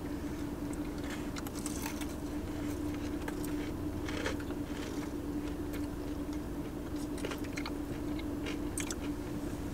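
Close-miked chewing and biting of breaded chicken, small wet clicks and crunches scattered throughout, over a steady low hum inside a car.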